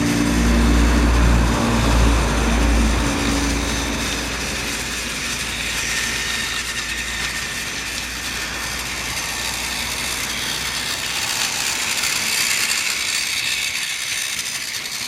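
Battery-powered Trackmaster toy diesel shunter with a flat-type drive unit running on plastic track: a steady motor-and-gear whirr with wheel rattle. A low hum underneath fades out about four seconds in.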